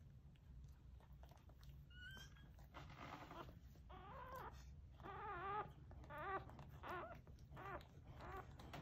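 English springer spaniel whining: a run of short, wavering whimpers starting about halfway through, roughly one every second or less.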